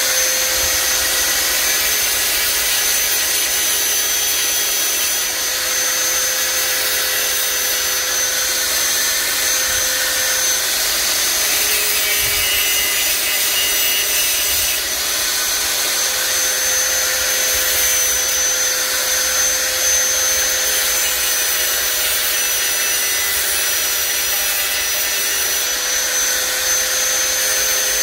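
Handheld mini grinder (rotary cutting tool) running continuously with a steady high whine, cutting away the rear cover of a car headlight reflector housing.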